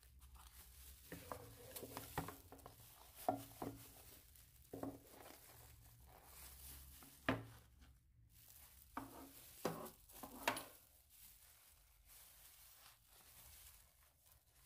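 Baking paper and plastic wrap crinkling and rustling as a block of nugget mixture is turned out of a metal loaf tin, with a few sharper light knocks among the rustling. It quietens near the end.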